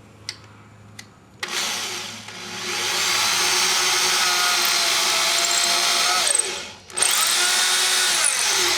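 Power drill with a small starter bit drilling pilot holes into wood, run in two bursts. The motor speeds up and runs steadily, slows and stops for a moment, then runs again and winds down near the end.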